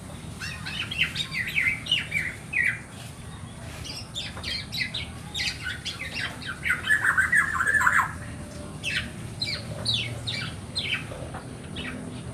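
Black-naped oriole chicks calling: rapid runs of short, sharply falling calls in three bouts, the densest and loudest about seven seconds in. A low steady hum lies underneath.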